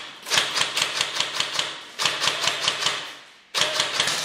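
Systema M4 electric airsoft rifle firing on full auto in three bursts of rapid clicking shots, with short breaks about two seconds in and near the end.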